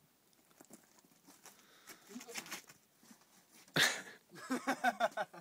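A person laughing: a loud sudden outburst about four seconds in, then a quick run of ha-ha pulses.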